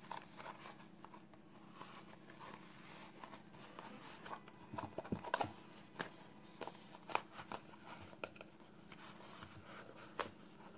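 Faint handling noise of a knitted bootee being worked onto a plastic foot form: soft rustling of yarn with scattered small clicks and taps, a cluster of them about five seconds in, over a low steady hum.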